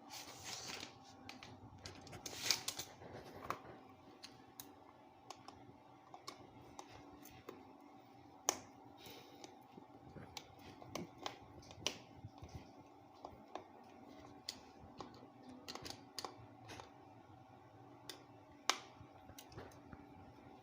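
Irregular small clicks, taps and scrapes of a screwdriver and metal screws against a plastic 13 A socket faceplate as it is screwed onto its back box.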